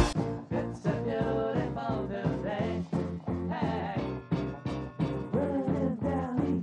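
Background music with a steady beat and a sliding melody line; it drops sharply in volume at the very start.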